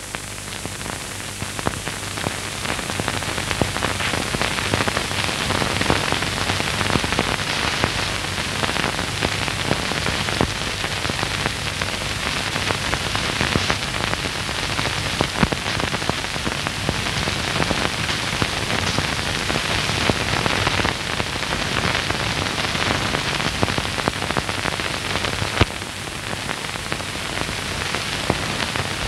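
Dense crackle and hiss of a worn optical film soundtrack, full of fine pops and clicks over a low steady hum, with no music or voice.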